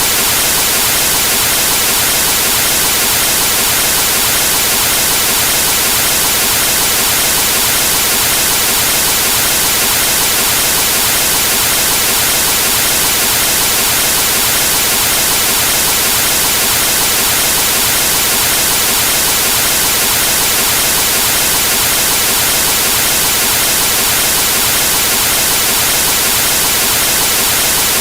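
Television static: a steady, loud hiss of white noise from a TV tuned to a dead cable channel.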